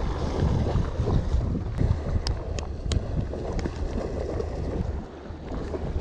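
Wind buffeting the microphone in a low rumble, over waves washing against the shore rocks, with a few sharp clicks about two to three seconds in.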